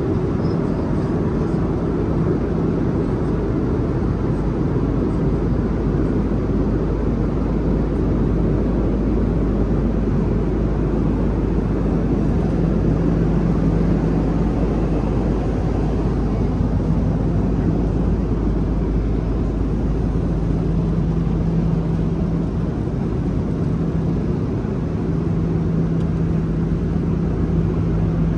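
Steady cabin noise of an Airbus A330 airliner in flight: a constant low rush of engine and airflow noise, with a low hum that swells in about halfway through and comes and goes after that.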